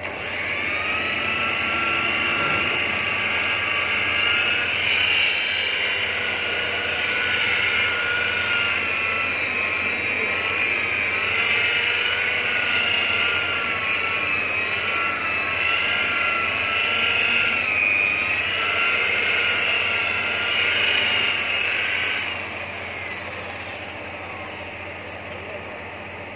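Electric rotary car polisher with a wool pad whining as it spins up, then running for about twenty seconds, its pitch wavering as the pad is worked against a car door's paint. Near the end it is switched off and winds down.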